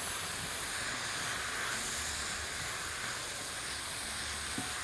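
Chopped peppers and tomatoes sizzling steadily in hot oil in a frying pan as a shakshuka base fries.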